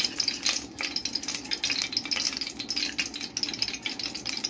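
Bay leaves sizzling in hot corn oil in a metal pot, a steady crackle, with a metal spoon stirring and scraping against the pot.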